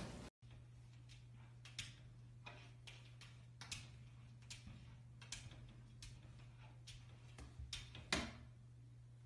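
Light, irregular taps and clicks of a golden retriever puppy's paws against a mirrored closet door and the wood floor, the loudest near the end, over a faint steady hum.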